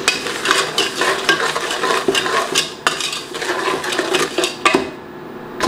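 Wooden spoon stirring blueberries and granulated brown sugar in an aluminium pot, scraping against the bottom and sides in quick repeated strokes, stirred constantly so the sugar doesn't stick. The scraping dies down about five seconds in.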